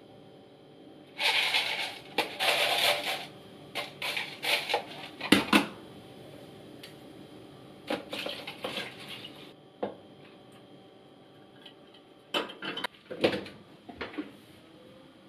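Dry spaghetti rattling in a plastic food container and the container knocking as it is handled, in several bursts of clatter and sharp knocks with short pauses between.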